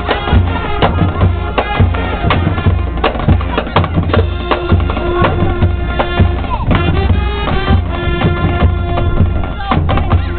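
Loud music with a busy drum beat and sustained melodic tones, drum hits falling several times a second.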